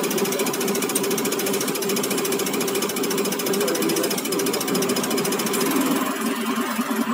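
Caterpillar HEUI injector firing on a diesel injector test bench, a fast, even mechanical rattle over the steady running of the bench's drive and high-pressure oil pump. The rattle fades near the end as the test is stopped.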